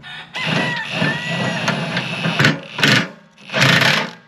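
Cordless impact wrench hammering a tooth bar bolt tight: one long run of rapid hammering with a motor whine, then three short bursts as the bolt seats.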